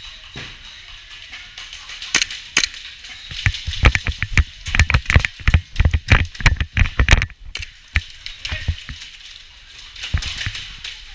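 A few seconds of irregular, fast sharp knocks and clatter in the middle, with scattered single clicks before and after.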